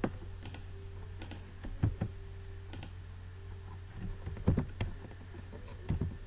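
Scattered computer keyboard keystrokes and mouse clicks, a few isolated taps with a short cluster about four and a half seconds in, over a steady low hum.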